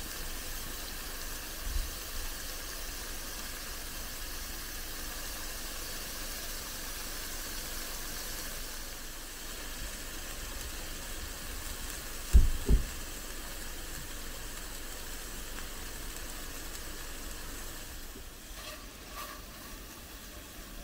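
Steaks sizzling in a pan on a camping stove: a steady hiss, broken by two dull thumps close together about twelve seconds in.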